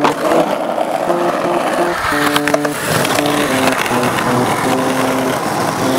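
Skateboard grinding along a painted curb, a harsh scraping rasp, after a sharp click of the board landing right at the start; background music with a clear melody plays over it.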